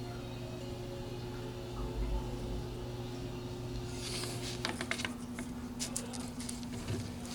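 A steady low hum whose pitch shifts about two thirds of the way in. From about four seconds in come scattered light clicks and taps, like small objects being handled.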